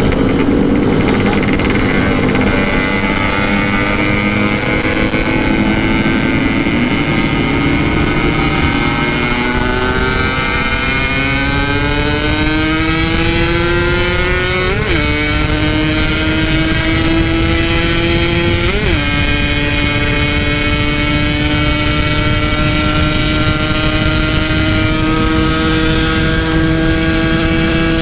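Yamaha RX-King's 135cc single-cylinder two-stroke engine under full throttle at speed, revs climbing, with two sharp drops in pitch about 15 and 19 seconds in as it is shifted up, then holding steady at high revs.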